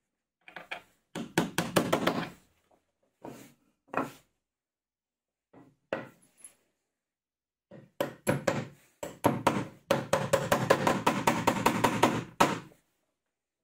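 A hammer tapping a steel pin into a hole in a plywood part, in quick runs of sharp strikes several a second, the longest run in the second half.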